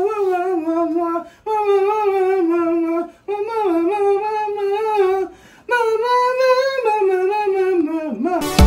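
A woman singing a wordless tune in four short, smooth phrases with brief pauses between them. Music starts abruptly right at the end.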